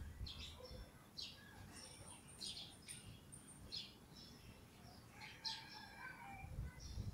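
Faint birdsong: short chirps repeating about once or twice a second, with a thin high whistle near the middle and a few lower notes about two-thirds of the way through.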